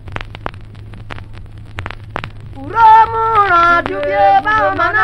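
Okpe traditional dance music: sharp percussion strokes, a few a second, over a steady low hum from the recording. About two and a half seconds in, several voices come in loudly, singing.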